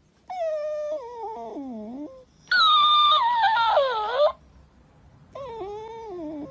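A Shiba Inu whining in long, drawn-out moaning cries that slide down in pitch. The first two each last nearly two seconds, and the second is the loudest. A shorter falling cry comes near the end.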